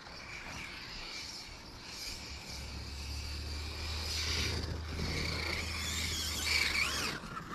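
A low, steady engine hum that starts about two and a half seconds in and stops near the end, over faint outdoor background noise.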